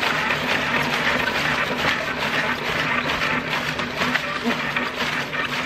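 Hand-cranked rotary lettuce slicer shredding half a cabbage: the spinning blade disc cutting steadily through the pressed leaves, a continuous crisp crunching noise full of small crackles.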